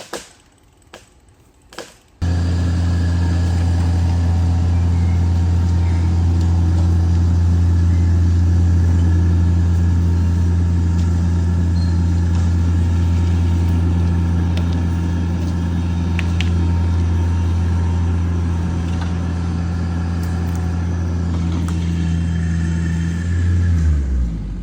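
An engine running steadily at constant speed, then dropping in pitch and stopping near the end. A few sharp clicks just before it starts.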